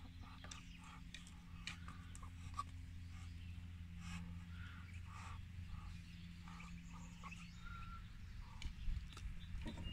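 Muscovy ducklings peeping in short, scattered calls, with a few soft ticks and a steady low hum underneath.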